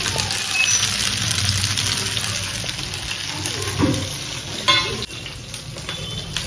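Food frying in hot oil in a pan, sizzling steadily while it is stirred, with a sharp utensil clink about two thirds of the way through.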